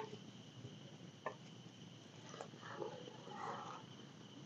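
Faint, steady high chirring of night insects, with a single light knock about a second in.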